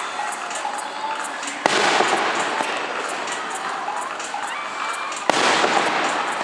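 Fireworks display: two sharp bangs of shells bursting, about a second and a half in and again about five seconds in, each followed by a spread of crackling, over a continuous background crackle.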